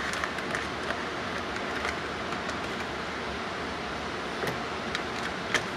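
A few faint crinkles and clicks from a foil dehydrated-meal pouch being stirred with a spoon, over a steady hiss.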